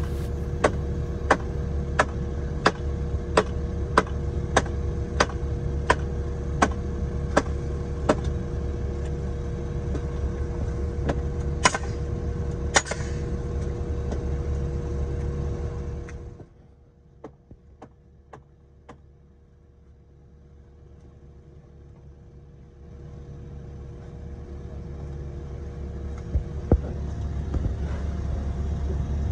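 Water-jet pump engine running steadily under regular hammer blows driving a wooden bulkhead board into sand, about one and a half strikes a second for the first eight seconds, then two sharper pneumatic nail-gun shots. About sixteen seconds in the engine noise cuts off suddenly to a much quieter stretch with a few light taps, and the engine sound gradually builds back near the end.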